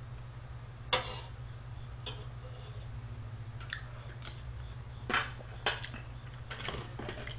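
Metal spoon clinking against a cooking pot and a foil tray as ramen is scooped up and eaten, with a few sharp clicks, the loudest about a second in, and chewing between them. A steady low hum lies underneath.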